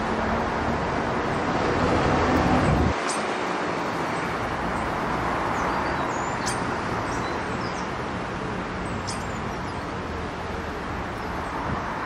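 Steady outdoor background rumble and hiss, with a deeper rumble that cuts off abruptly about three seconds in, and a few short, high bird chirps scattered through it.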